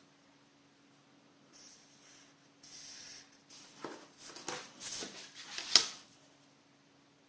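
A felt-tip marker drawn across paper in two faint hissing strokes, followed by a plastic set square being shifted and set down on the paper with several clicks and knocks, one sharp knock louder than the rest near the end.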